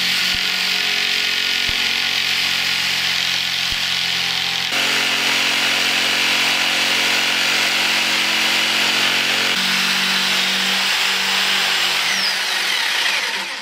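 Corded electric jigsaw running steadily as it cuts through a plywood panel, its blade's reciprocating buzz over the motor's whine. The tone shifts abruptly about five and ten seconds in.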